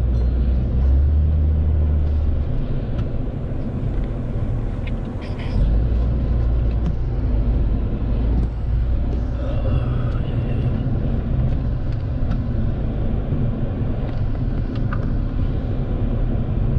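Car interior noise while driving: a steady low rumble of engine and road noise heard from inside the cabin.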